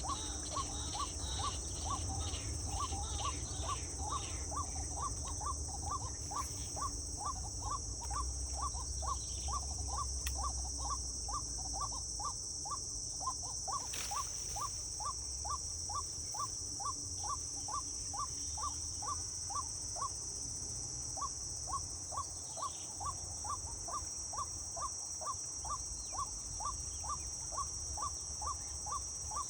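Steady high-pitched insect chorus, with a short chirping call repeated about twice a second throughout.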